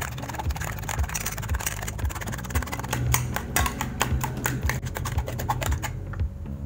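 Eggs being beaten in a stainless steel bowl: a utensil clicks rapidly against the metal bowl as it whisks, stopping about six seconds in.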